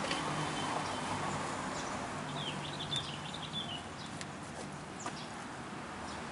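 Outdoor ambience with a steady hiss, and a bird chirping a quick run of high notes for about a second in the middle.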